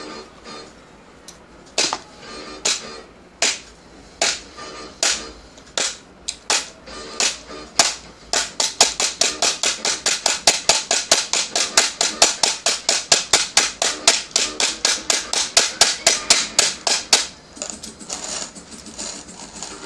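Pharos hand coffee grinder crunching beans through its conical burrs: sharp cracking clicks, a few spaced out at first, then a quick steady rhythm of about three a second. The clicks stop a couple of seconds before the end.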